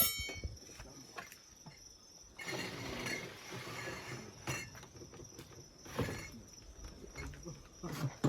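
A single sharp ringing clink of tableware at the start, then crickets chirring steadily in a high thin tone, with soft rustling and scattered light clicks.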